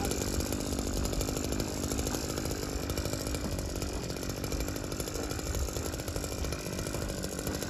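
Small gasoline engine of a motor-driven sprayer pump running steadily at a constant speed.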